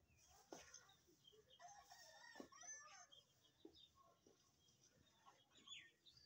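A rooster crowing faintly about two seconds in.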